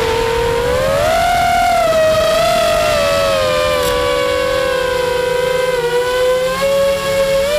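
Brushless motors and propellers of an FPV quadcopter whining, heard close from the camera on the quad; the pitch rises about a second in, then eases down gradually as the throttle changes, and the sound starts to waver near the end.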